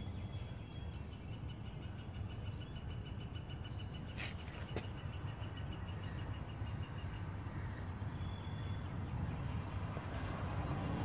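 Outdoor background noise: a steady low rumble with a high, rapid ticking trill from about a second in until about seven seconds in, and two sharp clicks near the middle.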